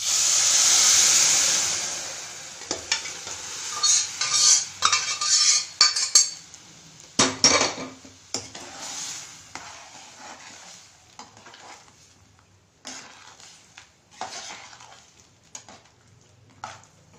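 Cooked dal poured into a hot pot of frying drumstick and tomato masala: a loud sizzle that fades out over about two seconds. A metal ladle then stirs and scrapes against the pot, with scattered clinks.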